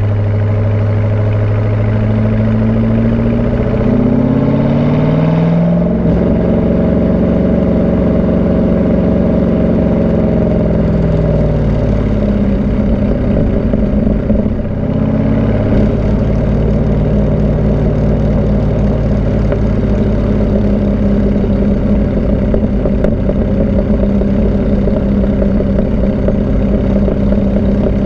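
C5 Corvette's 5.7-litre V8 through a Borla cat-back exhaust with the catalytic converters removed, under way on the road. The engine note rises a couple of seconds in, holds, then falls away; after a brief dip it settles into a steady cruise.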